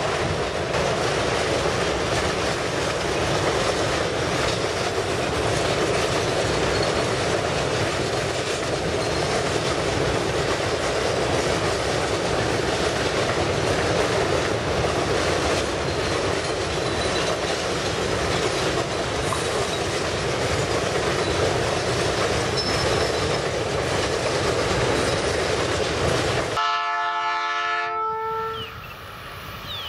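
Freight train wagons rolling steadily past on the rails, a continuous rumble with wheel clatter. Near the end, after a cut, a distant locomotive's air horn sounds a chord of several tones for about two seconds.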